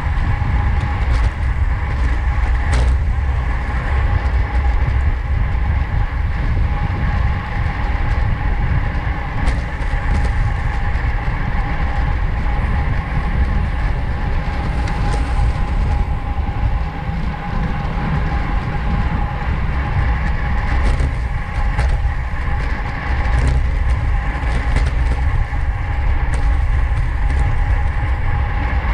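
Heavy wind buffeting the microphone of a racing bicycle at speed, over a steady rumble of tyres on the road and a faint whine from the drivetrain, with a few light clicks.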